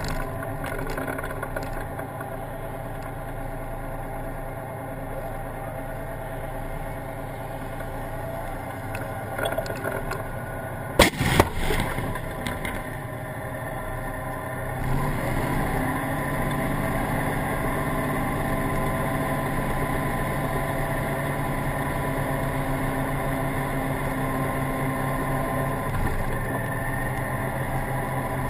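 A tank's diesel engine running steadily, cut about eleven seconds in by two sharp, loud blasts close together: the tank's main gun firing and its shell bursting just ahead. A few seconds later the engine grows louder and holds a steadier drone.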